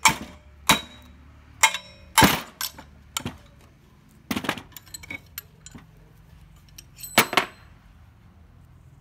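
Metal tools and parts knocking and clinking during hand work on a workbench: about eight sharp, irregularly spaced strikes, some with a brief metallic ring. The loudest come about two seconds in and about seven seconds in.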